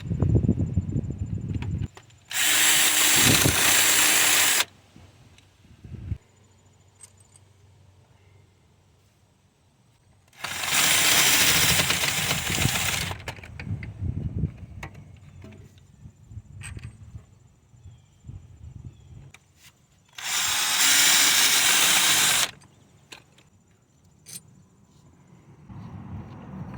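Cordless power tool, most likely an impact wrench, running in three bursts of about two seconds each, one about 2 s in, one about 10 s in and one about 20 s in, as it spins out the three 14mm bolts of an engine motor mount bracket.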